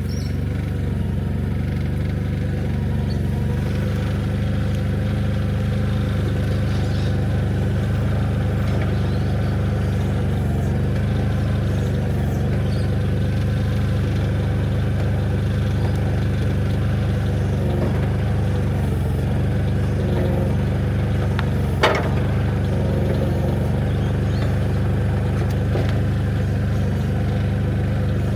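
Engine of a working machine running steadily at an even speed, with a single sharp knock about three-quarters of the way through.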